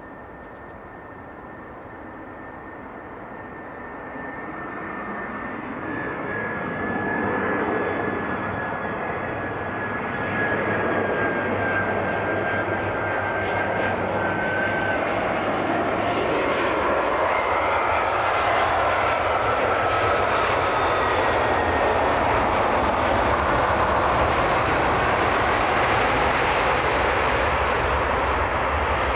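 Jet airliner arriving: the engine noise builds over several seconds to a loud, steady rush, with high whines that slide slowly lower in pitch as it passes.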